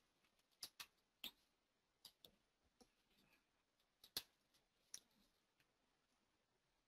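Faint computer mouse clicks, about seven sharp clicks scattered over a few seconds against near silence, the loudest about four seconds in.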